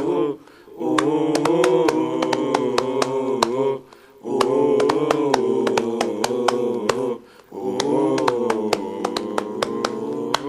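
A supporters' chant: a group of voices sings long, held 'oh' phrases over a sharp, regular beat of about four strikes a second. Brief breaks come about half a second in, near four seconds and near seven and a half seconds.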